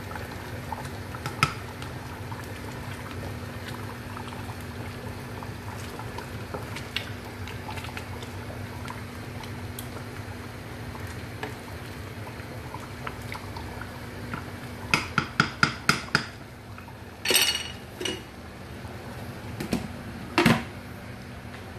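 A pot of goto (rice porridge with beef tripe) boils steadily while a wooden spatula stirs through it. About fifteen seconds in comes a quick run of about six knocks against the metal pot. Then a few louder clatters follow as the pot's lid is set back on.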